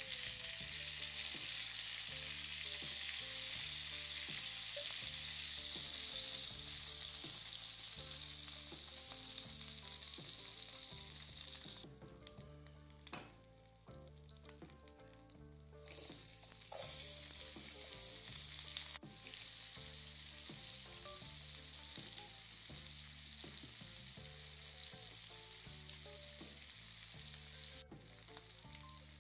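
Olive oil sizzling in a nonstick frying pan as floured chicken breast fillets fry, then diced onion frying in the same oil. About twelve seconds in the sizzle falls away for a few seconds, then comes back louder as the onion goes in. Soft background music runs underneath.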